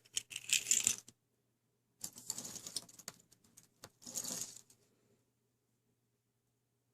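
Small plastic and metal vending-machine charms clicking and clattering against each other as they are picked through by hand, in three short spells.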